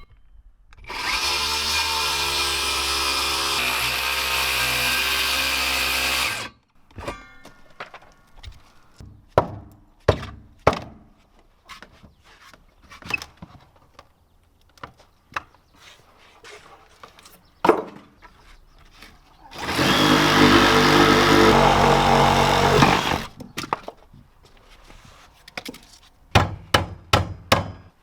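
Electric power saw cutting through wooden framing lumber twice, each cut lasting a few seconds, with the motor pitch dipping under load. Between and after the cuts come sharp single knocks of wood being struck or nailed.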